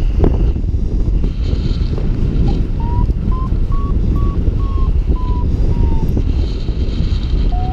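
Wind buffeting the microphone during a paraglider flight, with a flight variometer beeping: short beeps about two a second, their pitch rising and then falling, the vario's climb signal that the glider is in lift.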